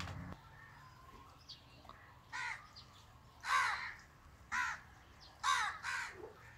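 A crow cawing five times, the calls starting about two seconds in and coming roughly a second apart, the last two close together.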